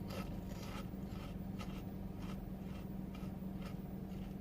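Chips being chewed: faint, rhythmic crunching, about three chews a second, over a steady low hum.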